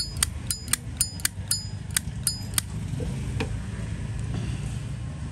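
Brass Zippo lighter lid flicked open and snapped shut again and again: sharp metallic clacks with a brief ring, about four a second, stopping about two and a half seconds in. A couple of fainter clicks follow over a low background rumble.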